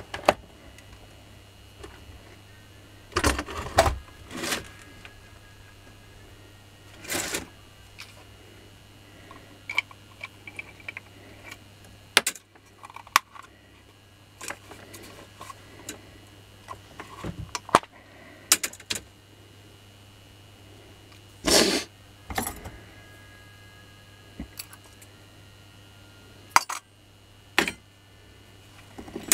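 Parts of a disassembled Makita hammer drill, plastic housings, armature and cord, handled on a workbench: scattered clicks, knocks and short rattles, with a few louder clatters a few seconds in and again past the middle.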